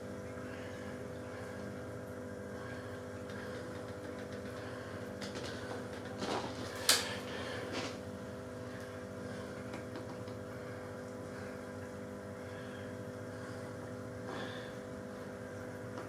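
A steady mechanical hum made of several steady tones, with a few brief handling clicks and rustles; the loudest is a sharp click about seven seconds in.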